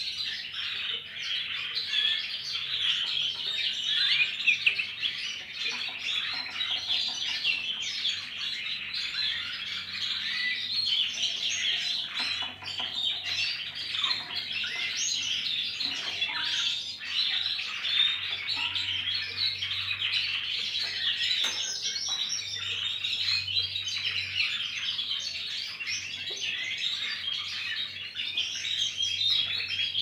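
Several caged goldfinch-hybrid finches chirping and twittering without a break, their high calls overlapping densely. A faint low hum runs underneath and grows stronger from about the middle on.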